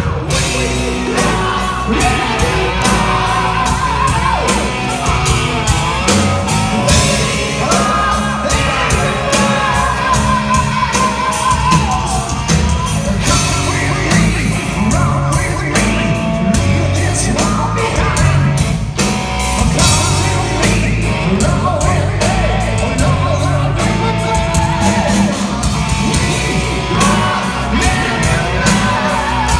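Hard rock band playing live: loud distorted guitars, bass and drums under a male singer who sings and yells the vocal line.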